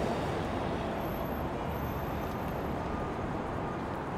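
Steady city road-traffic noise: a continuous wash of passing cars and heavier vehicles.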